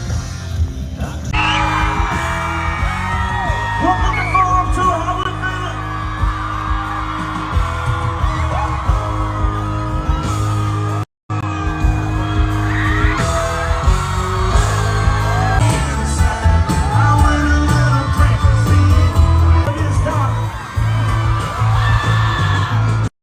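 Country music with a singer, loud, with people yelling and whooping along. The sound drops out for a moment about eleven seconds in.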